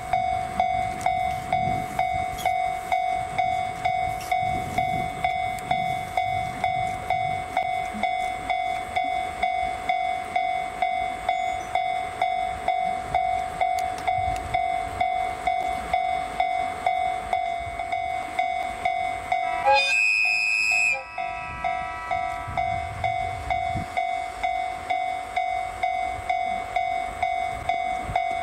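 Railroad level-crossing alarm ringing steadily at a little over two strokes a second. About twenty seconds in, a train horn sounds once for about a second over it.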